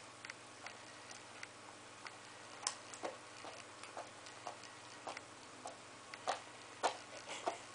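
Mixed-breed dog chewing a mouthful of ham sandwich and licking its lips: a run of short wet clicks and smacks, about two a second, uneven in strength, with a few louder ones in the second half.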